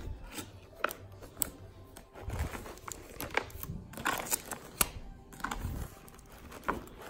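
Rustling and crinkling of packaged baby clothes being handled and lifted out of a plastic storage bin, with scattered small clicks, over background music.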